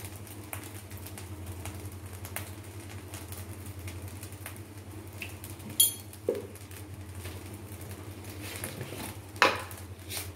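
Steel spoon clinking and scraping against a metal pan of fried rice being stirred: scattered light clicks and knocks, with two sharper ones about six seconds in and near the end, over a steady low hum.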